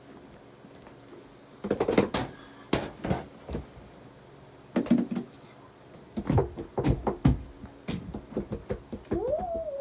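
Irregular bursts of knocking and clattering in several clusters, then a short squeaky tone that rises and falls near the end.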